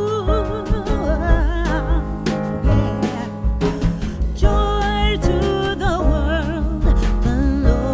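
Background music: a song with a singing voice whose pitch wavers and glides, over guitar and low bass notes.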